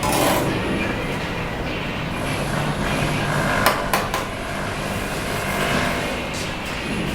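Bricklaying work on a cement-brick wall: two sharp knocks in quick succession about halfway through, over steady site noise.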